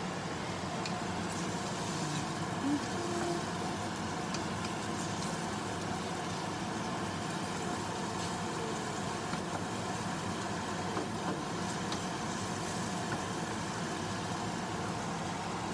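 A steady hum with a few light taps and scrapes of a wooden spatula stirring sliced onions in a stainless steel skillet.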